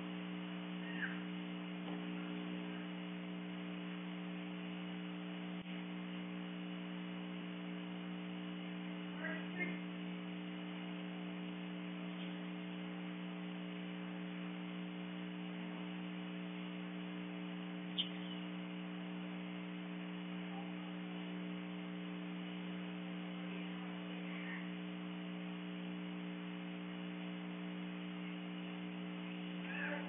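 A steady electrical hum made of several unchanging low tones, with a few faint, short high chirps now and then.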